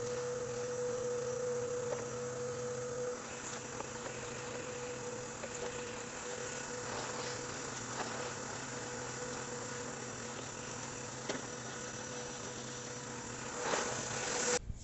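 Red Sanyo drum vacuum cleaner running steadily with a whine as its floor nozzle is worked over plastic artificial grass. The sound cuts off sharply just before the end.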